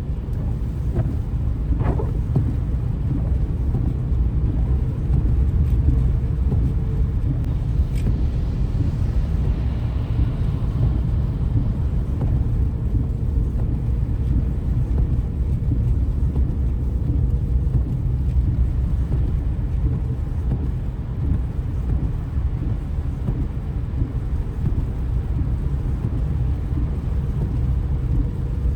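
Steady low road and engine rumble of a car heard from inside the cabin, driving slowly on a snowy freeway.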